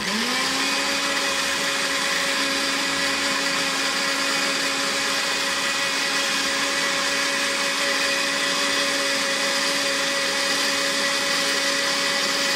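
Moulinex electric mini chopper switched on, quickly spinning up and then running at a steady, even whine as it blends a runny gel-and-oil mixture.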